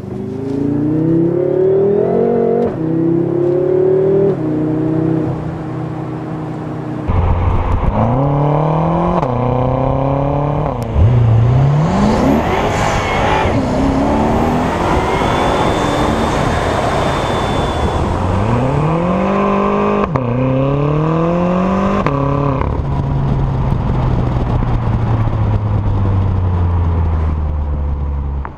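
BMW M6 Gran Coupe's turbocharged V8 pulling hard through the gears: the engine note rises, drops at each upshift and climbs again, over several runs. Near the end it eases off to a lower, steady drone.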